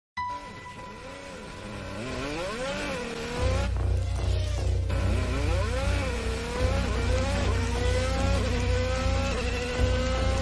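Open-wheel racing car engine revving, its pitch climbing and falling back again and again as it runs up through the gears. A deep rumble comes in about three and a half seconds in.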